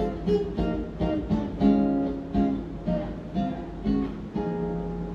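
Acoustic guitar strummed in a run of chords, about a dozen strokes, ending on a longer held chord near the end.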